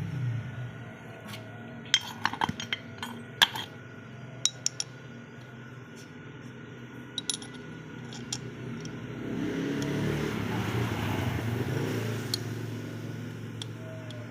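Steel parts and tools clinking and tapping against each other: a quick cluster of sharp metallic clinks about two to three and a half seconds in, and a few scattered ones later. A low rumble swells and fades in the second half.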